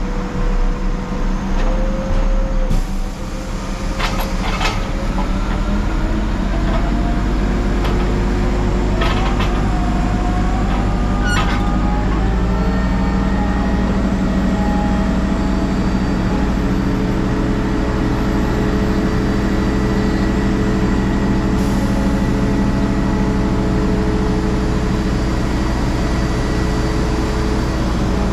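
Large mobile crane's diesel engine running; its revs climb over several seconds and then hold steady at a higher speed. A few sharp knocks are heard in the first dozen seconds.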